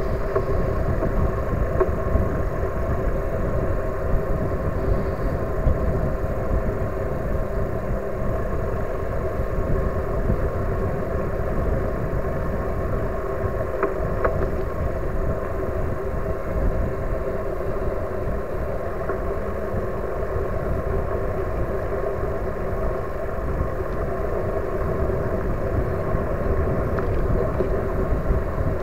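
Steady rumble of wind and tyre noise from an e-bike riding along an asphalt bike path, with a faint steady whine over it.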